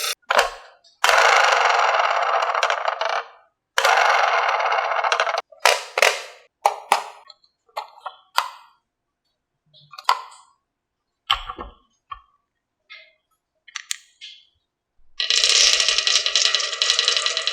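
Marbles rolling down a HABA wooden marble run: two stretches of steady rolling of about two seconds each, then a string of separate clacks and clicks as marbles drop and knock against the wooden pieces, and steady rolling again near the end.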